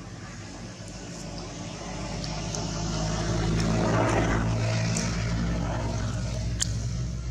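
An engine passing by: a low steady hum that grows louder to a peak about four seconds in, then slowly fades.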